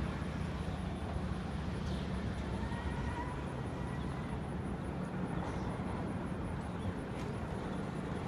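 Distant Bolliger & Mabillard inverted roller coaster train running on its steel track, heard as a steady low rumble over outdoor park ambience.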